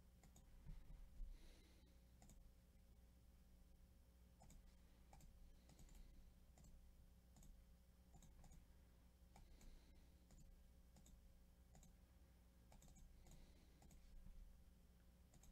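Faint, irregular clicking of a computer mouse over a low steady hum, with a slightly louder couple of knocks about a second in.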